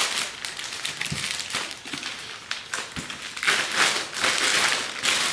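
Plastic courier mailer bag crinkling and rustling as it is pulled off a cardboard box, with a few light knocks of the box against the table.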